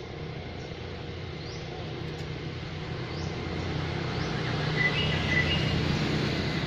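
Outdoor background: faint short chirps repeating under a low rumble that grows louder over the first five seconds.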